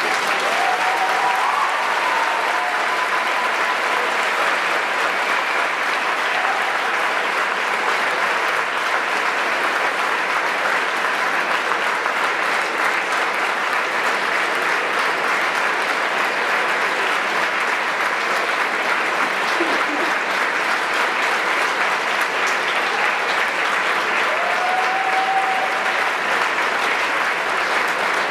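Large audience applauding steadily. A couple of brief curved calls rise above the clapping, about a second in and again near the end.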